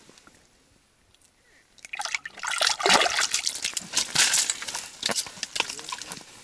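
Water splashing and slush crunching in an ice-fishing hole as a hand works in it. It starts about two seconds in as a dense run of quick splashes and clicks.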